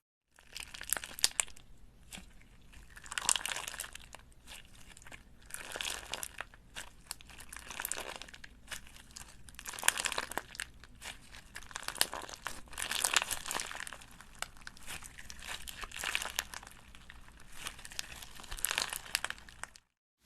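Crunchy, crackling material being mixed by hand or tool, in repeated swells of crinkling and crunching every second or two, with sharp little crackles.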